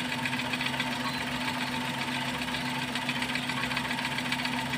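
Car engine idling steadily with a fast, even ticking.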